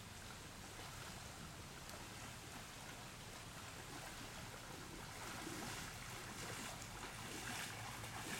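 Steady wash of distant surf and wind. Faint scattered clicks come in about halfway through.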